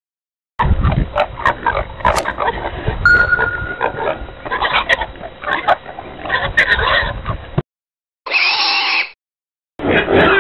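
Pigs grunting in a string of short, abrupt calls, heard as separate recordings cut together: a long stretch of repeated grunts, then a brief one and another starting near the end, each with a sudden start and stop and dead silence in between.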